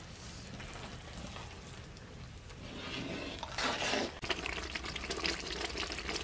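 A metal ladle scooping and pouring liquid in a large metal pot of rice cooking over an open fire, with a louder slosh about three and a half seconds in.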